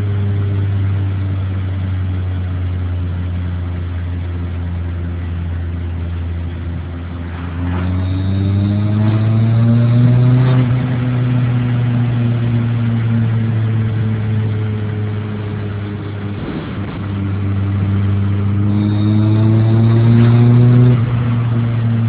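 Supercharged VW G60 engine in a Mk2 Golf, heard from inside the cabin while driving. It runs steadily, climbs in revs about eight seconds in, eases off slowly, then climbs again and drops off near the end. A faint high whine comes in with each climb, alongside a weird noise that the owner cannot place.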